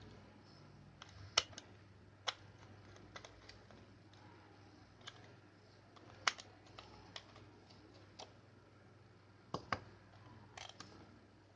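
Irregular sharp clicks and light knocks of small hard objects being handled, about a dozen scattered at uneven intervals, over a faint steady low hum.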